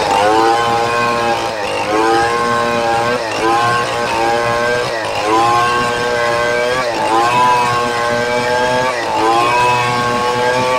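Stihl 070 two-stroke chainsaw at full throttle, ripping lengthwise through a red meranti log. Its engine note sags and recovers about every one and a half to two seconds as the chain bites under load.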